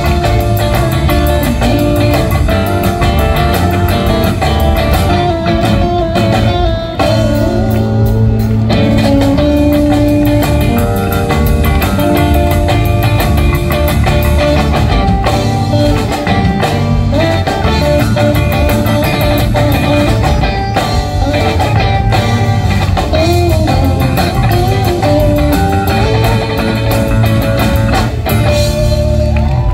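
A rock band playing live: electric guitars over electric bass and a drum kit, held guitar notes riding a steady beat.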